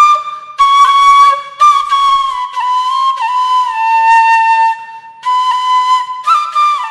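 A solo flute melody played as background music, a single line that slides between notes and holds some long tones, one held for about two seconds midway.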